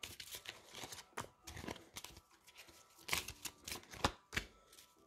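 Tarot cards handled by hand: a deck being shuffled with soft, irregular riffling and flicking, and a few sharper snaps as cards are laid on the table in the second half.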